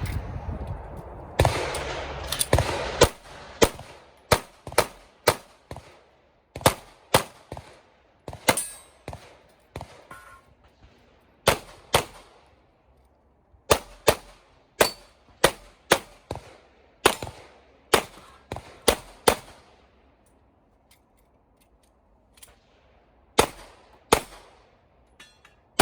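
A long string of 9mm Glock 34 pistol shots, mostly fired in quick pairs about half a second apart, with short breaks between pairs and a pause of about three seconds in the last third before two more pairs.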